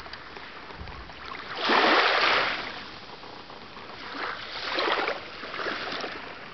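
Shallow sea water washing and lapping at the shoreline, with one louder wash about two seconds in and a few smaller ones later.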